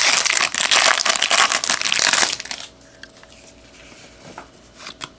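Wrapper of a trading-card pack being torn open and crinkled for about two seconds. Then a few soft clicks as the cards inside are handled.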